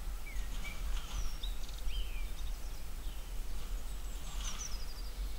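Small songbirds calling: a few short chirps and whistles, some rising and some falling, with a quick descending series about four and a half seconds in, over a steady low rumble.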